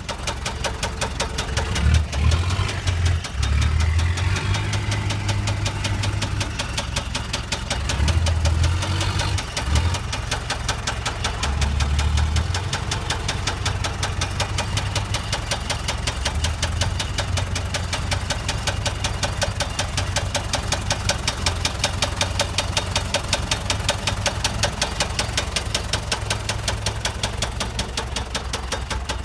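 Allis-Chalmers lift truck's four-cylinder turbo diesel idling with a steady, even firing rhythm. It swells louder in its low rumble a few times in the first dozen seconds, then settles.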